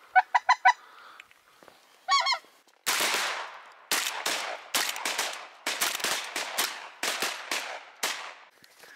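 Wild geese honking as a flock comes in: a quick series of short calls, then a few more about two seconds in. About three seconds in, shotguns open up in a rapid volley of sharp shots from several guns that keeps going for some five seconds.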